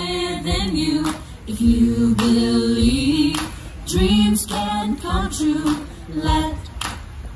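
A song with a woman singing slow, long held notes.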